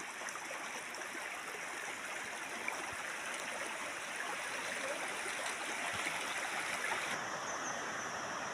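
River water rushing and flowing steadily over rocks.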